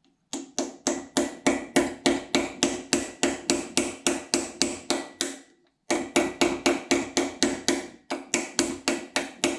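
A hammer tapping rapidly, about four taps a second, on a 7 mm socket held against an oil gallery plug, driving the plug into an aluminium engine block. The taps come in two runs with a short break a little past halfway.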